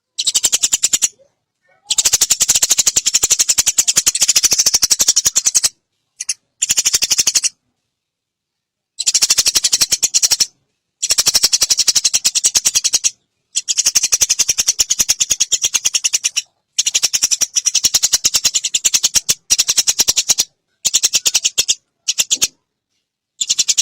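Eurasian tree sparrow giving long, rapid rattling chatter calls. The calls come in bouts of one to four seconds, each cut off by sudden silent gaps.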